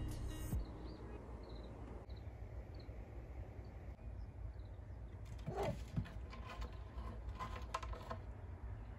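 Wild birds calling: faint, scattered short high chirps over a low steady outdoor rumble, then a louder run of short calls from about five to eight seconds in.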